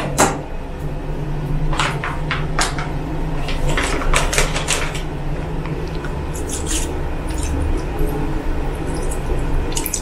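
Plastic sachet of liquid fabric softener crinkling and being torn open, a run of short crackles between about two and five seconds in, over a steady low hum. Near the end the softener begins to pour into the water-filled tub of a mini washing machine.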